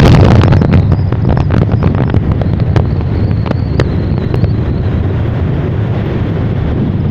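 Wind buffeting the microphone over the low rumble of a vehicle driving along a road, with scattered crackles in the first few seconds.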